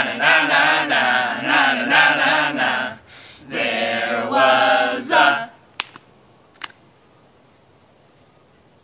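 A group of voices singing without words in sustained, chant-like tones, in two stretches, where the song's dropped animal names would go. Two sharp clicks follow, then only faint room tone.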